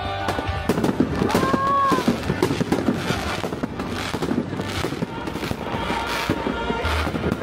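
Fireworks exploding in a rapid series of bangs and crackles, with music playing over them.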